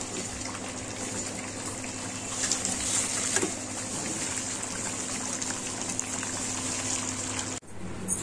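Potato cubes sizzling in hot oil in a large steel kadhai, a steady hiss. A few clinks and scrapes of a perforated steel slotted spoon stirring them come around the middle, and the sizzle cuts off suddenly near the end.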